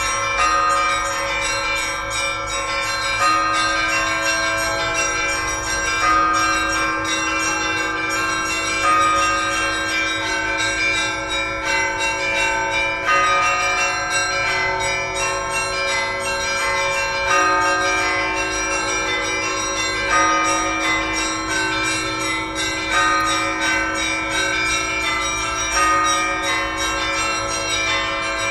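Russian Orthodox church bells (kolokolny zvon) ringing together in a festive peal: many smaller bells ring on over a deeper bell, with a louder stroke about every three seconds.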